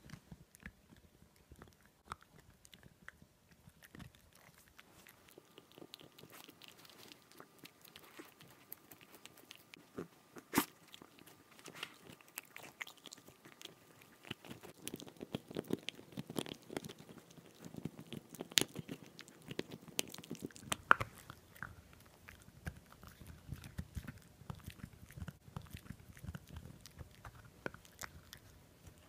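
A Boston terrier chews on a boiled pork rib bone, its teeth crunching on the bone. The clicks are sparse at first and become steady, dense crunching from about halfway, a sound like hard candy being bitten.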